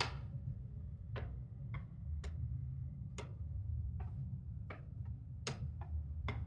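About ten sharp clicks and taps of hard objects, spaced unevenly, the loudest right at the start and another about five and a half seconds in, over a steady low hum.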